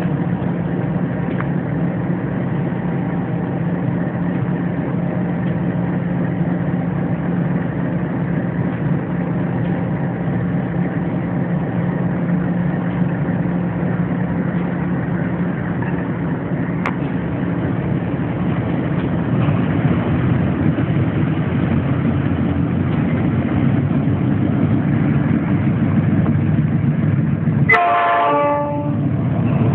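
Diesel locomotive running steadily under way, with a constant low engine hum, heard from the cab. About two seconds before the end, a train horn sounds briefly, falling in pitch, as the oncoming iron-ore train comes alongside.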